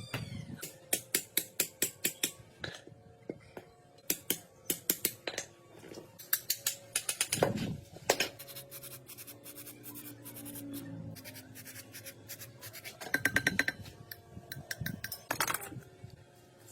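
Runs of quick, sharp scraping or scrubbing strokes, about four to five a second, with pauses between the runs.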